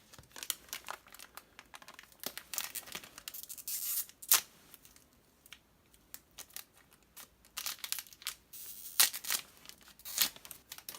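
A trading-card booster pack's foil wrapper being torn open and crinkled, with the cards handled, in a run of irregular sharp crackles and rustles.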